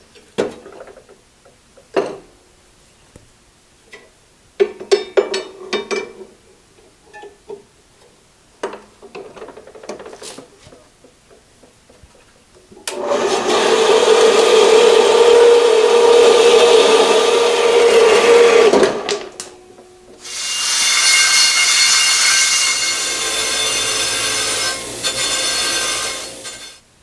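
Metal clatter and clicks as a horizontal metal-cutting bandsaw's vise is set up and clamped on a steel go-kart axle. The bandsaw then runs and cuts through the axle for about six seconds. After it stops, a bench grinder's wire wheel brushes the cut end of the axle for about six seconds, with a higher, ringing whine.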